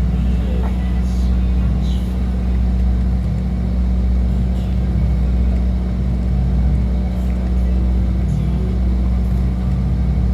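A boat's engine running steadily, a constant low hum.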